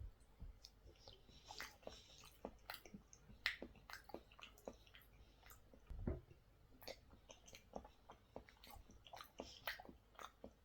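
Close-up chewing and mouth sounds of someone eating soft cottage cheese: faint, irregular wet smacks and clicks, with a couple of low thumps, one about six seconds in.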